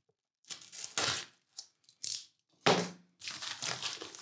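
A small knife slitting a brown paper envelope, then the paper crinkling and tearing as it is pulled open by hand. The sound comes in several short bursts, the loudest about three seconds in.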